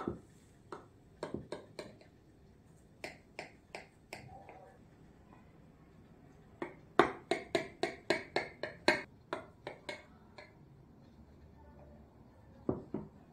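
Knife tip clicking against the bottom of a glass baking dish as it cuts down through a layered dessert. The sharp clicks come in short runs, with a quick run of about a dozen, some four a second, in the middle.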